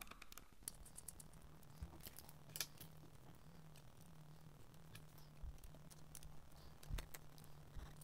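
Faint scattered clicks and light metallic taps as a 2.5-inch SSD in its metal drive bracket is handled and fitted into a laptop, over a low steady hum.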